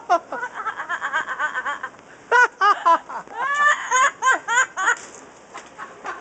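Caged Amazon parrot mimicking a human laugh: a quick run of short ha-ha notes, then several separate notes and a string of bending, voice-like calls.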